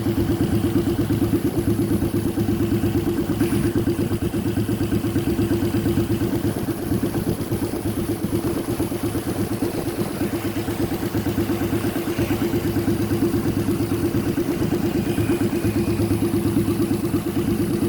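A 1000cc car engine fitted to a custom-built motorcycle, running steadily at idle with an even, rapid pulsing exhaust beat.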